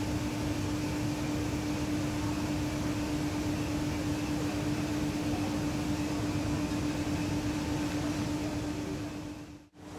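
Steady background hiss with a constant low hum, briefly dropping out near the end.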